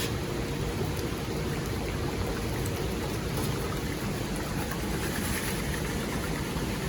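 Steady rain falling on the cover overhead, an even, unbroken patter.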